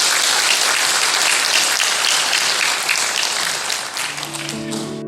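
Audience applause: dense, steady clapping that cuts off suddenly near the end, as sustained keyboard chords come in underneath.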